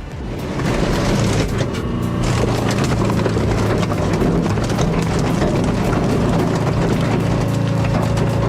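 Heavy machinery running loud and steady, a deep engine hum with many irregular knocks and clatter over it.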